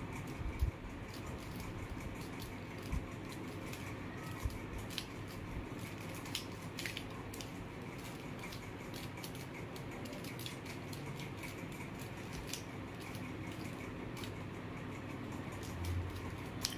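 A plastic mirror cube being turned layer by layer in the hands, with scattered light clicks and clacks of the moving pieces over a steady background hiss.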